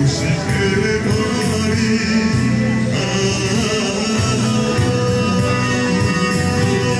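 Dance music with singing and a steady beat.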